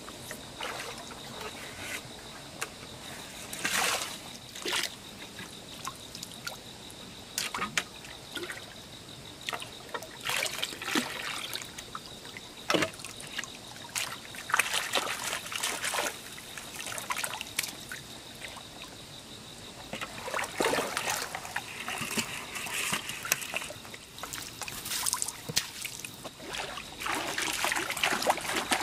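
Shallow stream water splashing and trickling as a square mesh hand net is scooped and dragged through it, water draining back out through the mesh, in irregular splashes.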